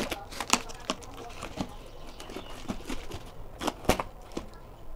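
Cardboard parcel being torn open by hand: packing tape and flaps pulled and ripped, giving irregular crackles and sharp clicks.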